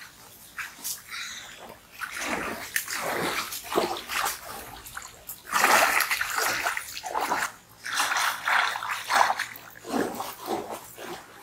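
River water splashing and sloshing in irregular strokes as a man works a dugout log boat through the shallows.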